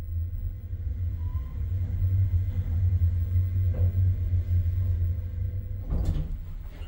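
Lutz passenger elevator cab travelling up, giving a steady low rumble that builds over the first couple of seconds, then eases off with a short knock about six seconds in.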